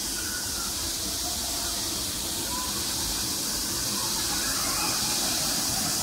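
Steady rushing hiss of a waterfall pouring into a pool, slowly growing louder. A few faint short whistling notes sound over it.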